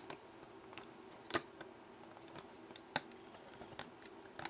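Faint clicks and taps of a metal hook and rubber bands on the plastic pegs of a Rainbow Loom as the lower band pairs are lifted off over the upper ones; two clicks stand out, about a second and a half apart.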